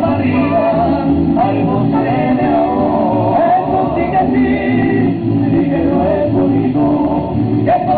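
Mariachi music: a male voice sings over the band, holding one long wavering note through the middle.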